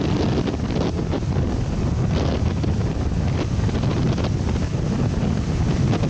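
Wind buffeting the microphone in a steady low rumble, with waves washing onto a rocky shore beneath it.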